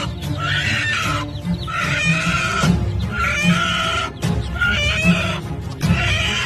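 Music with a steady beat and chicken clucking calls repeating in time with it, a group of calls about every second and a half.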